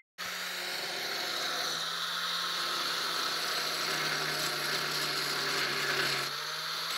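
Angle grinder cutting a notch into a steel angle bar, a steady grinding whine with showers of sparks; the motor note sags slightly midway as the disc bites in.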